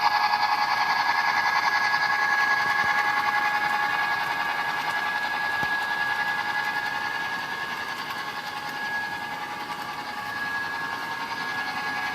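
Bachmann HO-scale Santa Fe F7 model diesel locomotive running, a steady buzzing hum with a high whine that fades a little midway and rises again near the end.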